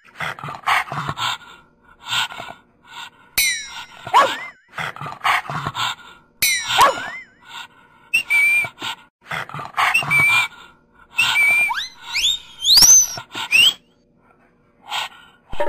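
Cartoon dog sound effects: a quick run of short noisy bursts broken by whistling swoops that rise and fall. A few short, steady high whistle notes come in the second half, then rising whistles near the end.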